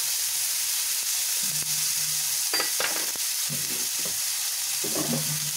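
Ginger-garlic paste sizzling as it hits hot oil in a frying pan of fried onions and tomatoes, a steady frying hiss.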